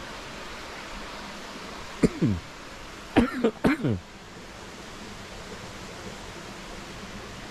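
A man coughing close to the microphone: one cough about two seconds in, then a short run of three coughs a second later, each with a falling voiced tail. He had said he feels a cold coming on. A steady hiss runs underneath.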